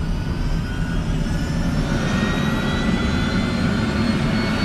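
Tour helicopter's turbine engine and main rotor running up on the ground before lift-off: a steady rumble with a high whine that rises slowly in pitch.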